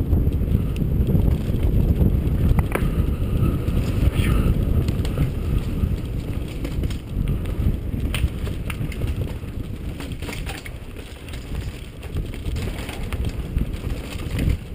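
Wind buffeting the microphone of a camera on a mountain bike moving fast down a forest singletrack, with scattered clicks and rattles from the bike over bumps in the trail.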